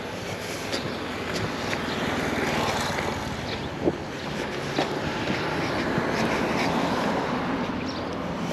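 An engine running close by, swelling and easing off, with wind on the microphone and a few sharp clicks.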